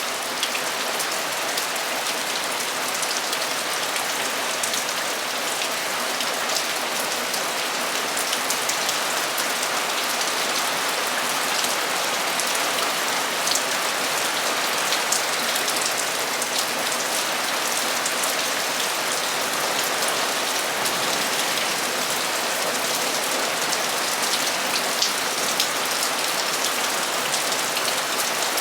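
Heavy, steady downpour drumming on a metal roof, a dense hiss of rain flecked with many small sharp drop impacts.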